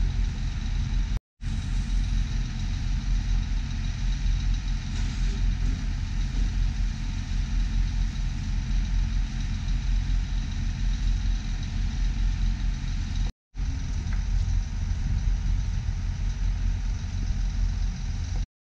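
An engine running steadily at idle, with two brief cuts to silence, about a second in and about thirteen seconds in.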